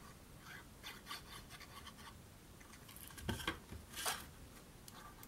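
Liquid-glue bottle tip scratching and rubbing on cardstock flaps as glue is spread, with light paper handling noises. About three and four seconds in come two louder scratchy rustles, the first with a soft knock, as the cardstock box is folded and handled.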